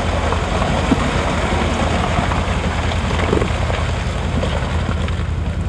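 Engine of a modified off-road 4x4 running steadily at low revs as the truck crawls through deep mud, with scattered small knocks and crackles over it.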